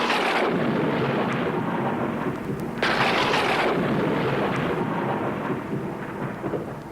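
Two thunderclaps: one as it begins and a second about three seconds in, each rumbling away slowly.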